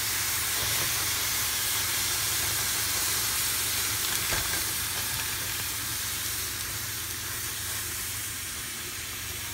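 Anaheim chiles sizzling steadily as they blister in a hot dry pan, the hiss fading slightly towards the end, over a low steady hum. A faint tap about four and a half seconds in.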